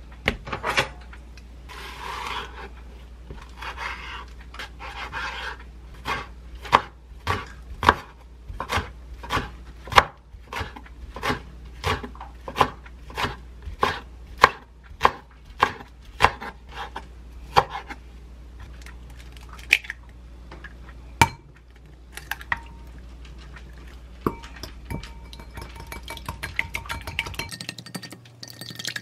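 Chef's knife chopping green onion on a wooden cutting board, steady knocks a little under two a second that stop about three-quarters of the way through. Near the end, a fork whisks eggs in a glass bowl with quick light clinks.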